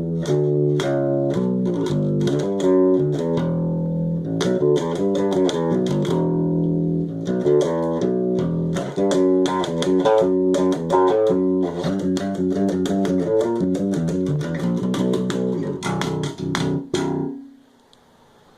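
Electric bass guitar playing a steady groove of plucked notes over music with sharp, regular ticks keeping time; it stops about seventeen seconds in and lets a last note ring off.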